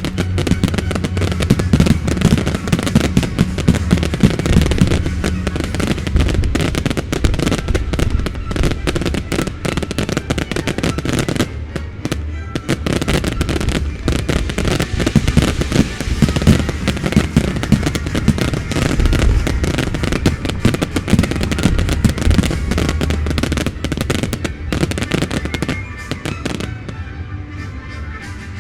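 Fireworks display with music: a dense, rapid barrage of bangs and crackling over loud accompanying music. The barrage thins out near the end, leaving mostly the music.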